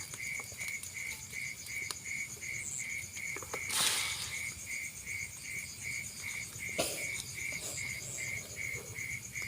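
Insects chirping steadily: a cricket-like call pulsing about three times a second, with a faster, higher trill above it. A brief rustle about four seconds in and a small knock near seven seconds.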